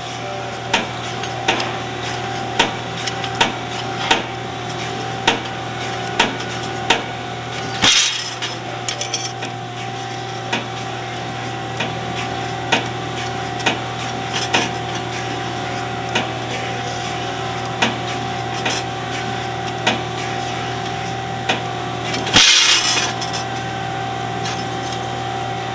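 Metal knocks and taps from hand tools on exhaust work, coming roughly once a second over a steady shop machinery hum. Two short hisses come about 8 and 22 seconds in.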